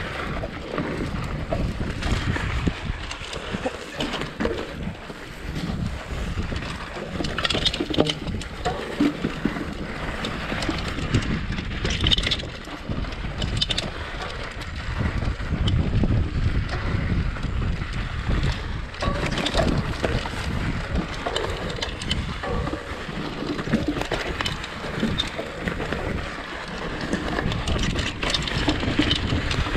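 Mountain bike riding fast down a rough dirt trail: wind buffeting the bike-mounted camera's microphone, tyre noise on the dirt, and the bike rattling and knocking over bumps.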